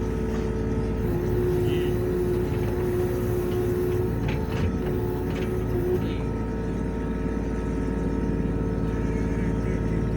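Kubota U27-4 mini excavator's diesel engine running steadily, with a whine whose pitch shifts a few times as the hydraulics are worked, and a few light knocks about four seconds in.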